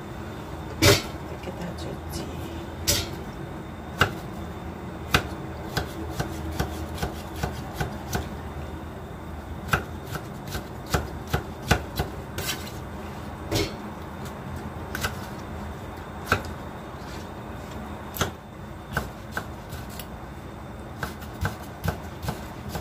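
Knife chopping food on a cutting board: irregular sharp knocks, some spaced out and some in quick runs of a few strokes.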